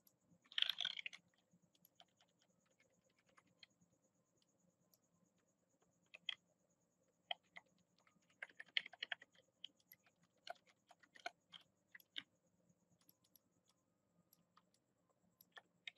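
Faint computer keyboard and mouse clicks, scattered and sparse, with short quick flurries of keystrokes about half a second in and again around nine seconds.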